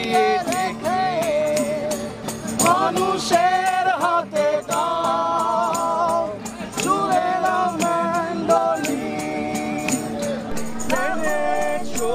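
A voice singing a wavering, ornamented melody over a steady drone note, with light jingling percussion ticking throughout.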